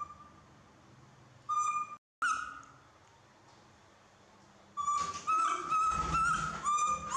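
Baby macaque giving high-pitched whimpering calls: two short single calls in the first half, then a quick run of calls, one after another, from about five seconds in.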